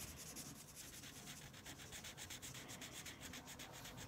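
Faint scratching of a felt-tip marker colouring on paper in quick back-and-forth strokes.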